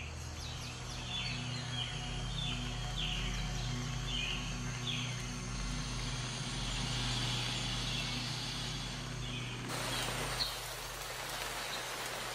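Rainforest ambience: a series of short bird chirps over a steady low hum. About ten seconds in, a steady hiss of rain sets in.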